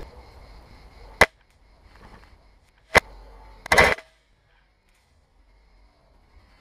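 Airsoft gunfire: two single sharp shots about two seconds apart, then a short clattering burst of several quick strokes a little under a second later.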